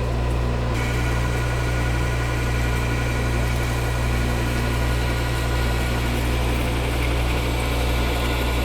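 Metal lathe running with a boring bar taking a light finishing cut inside the bore. The cut starts about a second in, a hiss over the motor hum with a steady high-pitched singing tone, the chatter a boring bar makes on very small bites.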